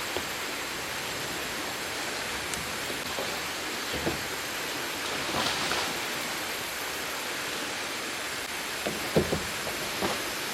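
Steady rush of a fast-flowing, rain-swollen stream, with a few short knocks and bumps.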